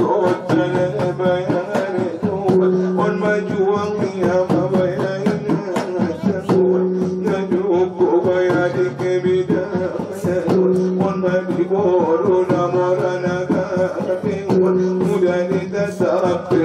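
Traditional Mandailing drum-and-gong ensemble music for a tortor dance. Rapid drum strokes run over a low held tone that returns every few seconds, with a melody line above.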